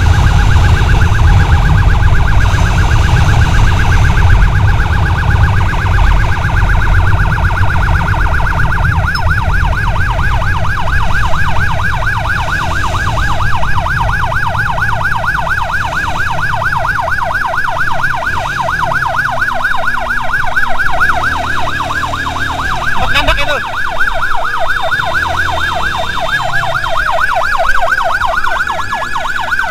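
Electronic emergency siren in a rapid yelp, loud and close, over the low rumble of wind and engine from riding at speed. Near the end the siren winds down in falling glides.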